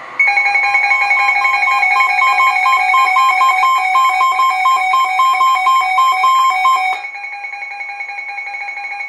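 Electronic emergency alert tone: a shrill warble switching rapidly back and forth between two pitches for about seven seconds, then dropping to a quieter steady tone.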